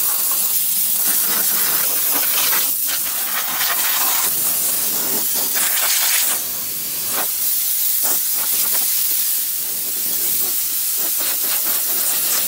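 Compressed-air blow gun hissing steadily as it blows dust and debris out of an old car's trunk and floor, easing briefly twice partway through.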